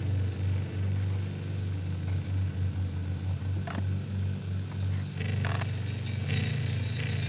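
Low, steady hum with a few faint clicks.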